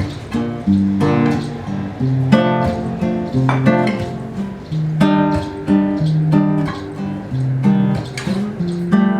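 Acoustic guitar strummed in chords with a steady rhythm, an instrumental passage without singing.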